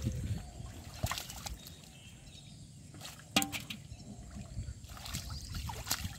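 Hands splashing and sloshing in shallow muddy water while grappling with a large fish, with a few sharp wet slaps, the loudest a little past three seconds in.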